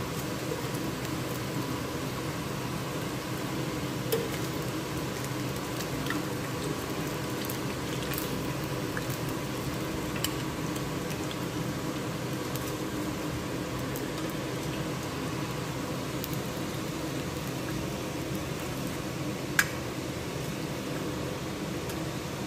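Chicken wings frying in hot oil in a skillet, a steady sizzle, with a few sharp clicks of a metal kitchen utensil against the pan.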